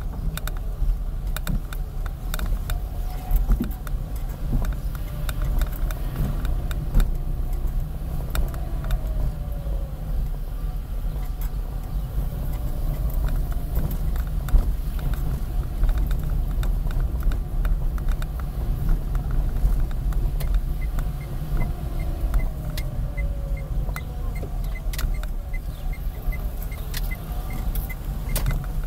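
A car heard from inside its cabin while driving slowly: steady low engine and road rumble, with the engine pitch slowly rising and falling and small rattles and clicks from loose things in the car. A faint, regular ticking comes in near the end.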